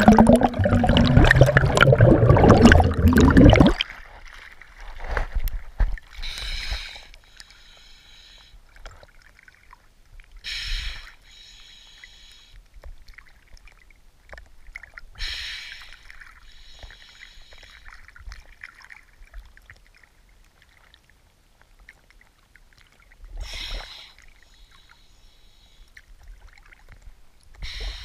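Water heard underwater through an action camera's housing. A loud rush of moving water fills the first few seconds and stops abruptly. After that it is quieter, with a short whooshing surge every few seconds.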